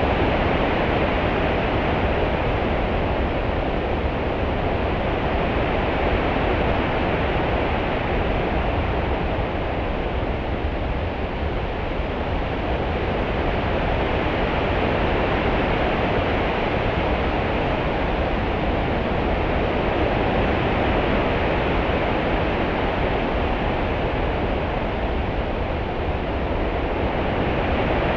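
Steady rushing of open-sea water, a deep wash with a softer hiss above it, swelling and easing slowly over several seconds like a passing swell.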